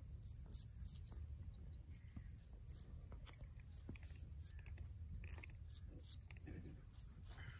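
Straight razor scraping short strokes through lathered beard stubble on a cheek: a quick series of short crisp rasps, about two a second, over a low steady rumble.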